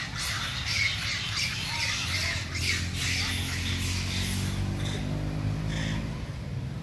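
Monkeys screeching and squawking in a rapid string of short, shrill calls, with a low steady hum underneath through the middle.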